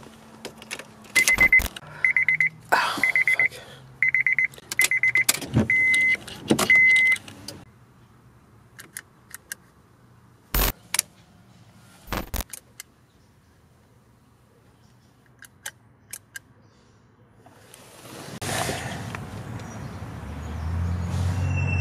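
Keys jangling and turning in a 2004 Honda Civic's ignition, with the car's warning chime beeping at one steady pitch in several short bursts over the first seven seconds. A couple of sharp clicks follow from the fog-light switch being worked, then a rushing noise swells near the end.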